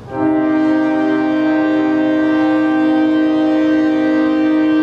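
Orchestra playing one loud sustained chord, entering suddenly and held steady in pitch for about five seconds.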